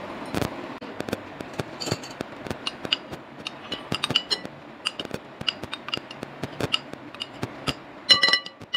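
A metal spoon tapping and scraping against a small ceramic bowl to knock instant coffee into a glass mixing bowl: a run of light clinks and clicks, with a louder cluster of ringing clinks a little after eight seconds.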